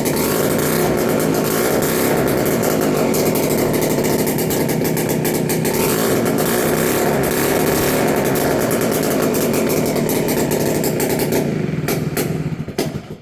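A 1961 Peugeot S57B scooter's 125cc two-stroke engine running steadily after a full rebuild, with small changes in revs, then dying away near the end.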